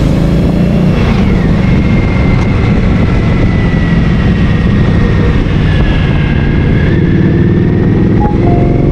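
Motorcycle engine running steadily at road speed, recorded on board the bike.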